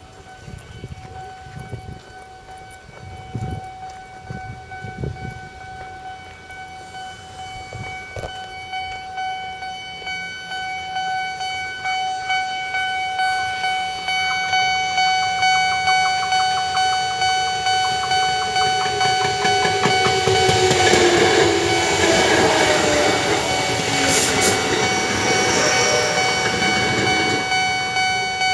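Japanese level-crossing alarm ringing in a steady repeating pattern, growing louder. About two-thirds of the way in, a Sanyo Electric Railway train runs past over the crossing for some seven seconds, its wheels clattering over the rails beneath the alarm.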